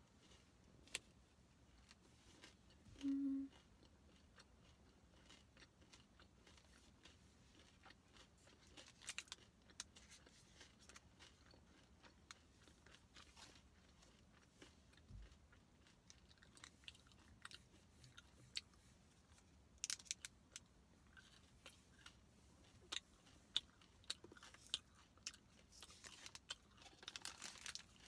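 Quiet, close mouth sounds of chewing a crunchy chocolate-dipped peanut butter protein bar: scattered small crunches and wet clicks, growing busier near the end. A short low hum about three seconds in is the loudest sound.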